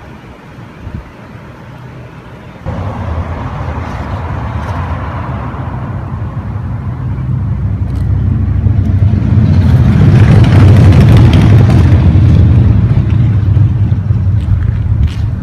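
A motor vehicle's engine running close by, a low rumble that starts suddenly a few seconds in, grows louder toward the middle and eases off near the end.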